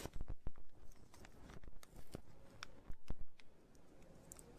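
Paper candy stick pack being torn open by its tear strip and the foil inner wrapper peeled back: soft tearing and crinkling with scattered sharp crackles.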